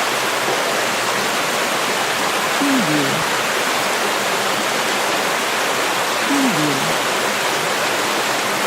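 River water flowing in a steady, even rush of water noise.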